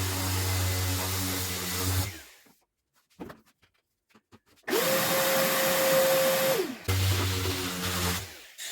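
A small handheld electric power tool is switched on and off in short runs. It runs for about two seconds, then stops, with a few faint clicks in the pause. It starts again with a whine that rises, holds steady and winds down, then cuts back in twice more near the end.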